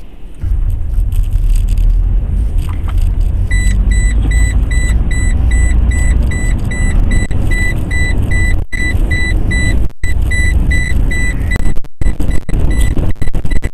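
A car interior fills with a heavy low rumble of storm wind and road noise while driving in hurricane-force wind. A rapid electronic beeping, about three beeps a second, starts a few seconds in and keeps going.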